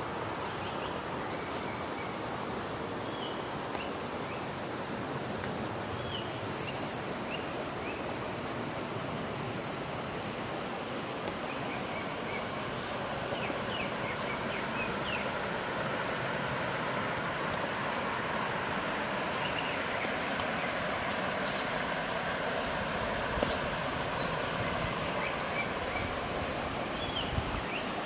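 Tropical forest ambience: a steady high insect drone and scattered short bird chirps over a constant soft background hiss, with a brief louder trill about seven seconds in.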